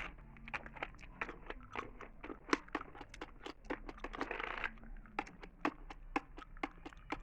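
Close-miked computer keyboard keys being tapped at an uneven pace, a few sharp clicks a second, with a brief rustle about four seconds in.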